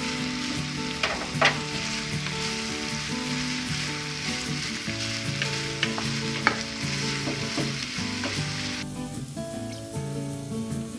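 Mock meat sizzling and frying in a pan while being stirred, with a few sharp taps of the utensil against the pan. The sizzle cuts off abruptly about nine seconds in.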